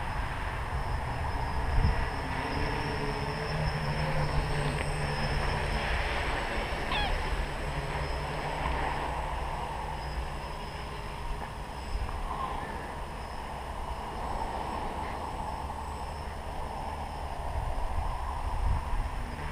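Tricopter's electric motors whining steadily in flight overhead, with wind rumbling on the microphone. A short high chirp comes about seven seconds in.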